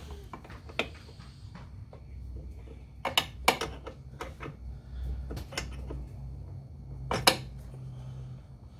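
Metal tools clinking and knocking as the fuel-line fittings on the fuel filter are worked on, with a few sharp clicks about three seconds in and another near the end, over a low steady hum.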